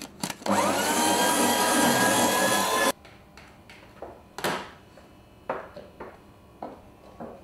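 Electric paper shredder motor starting with a short rising whine and grinding through paper for about two and a half seconds, then cutting off abruptly. A few light knocks follow.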